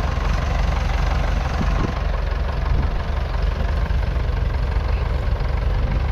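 The 3.4-litre four-cylinder diesel of a 1951 Nuffield Universal DM4 tractor runs steadily in a low, even rumble.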